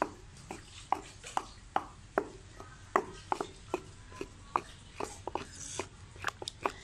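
Wooden pestle pounding a wet green paste in a stone mortar: a run of sharp, uneven knocks, about two to three a second.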